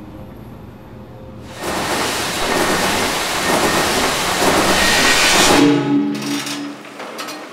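Elevator car running in its shaft: a low hum, then a loud rushing rumble that swells in about a second and a half in and cuts off abruptly near the end, followed by a brief low buzzing tone and a few clicks.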